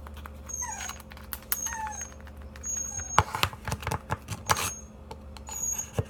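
A cat meowing, two short calls falling in pitch, followed from about halfway through by a run of sharp clicks and knocks.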